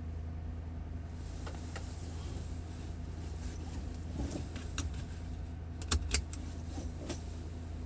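Ford Crown Victoria's 4.6-litre V8 idling steadily after a cold start. Scattered light clicks sound over it, with two sharper clicks about six seconds in.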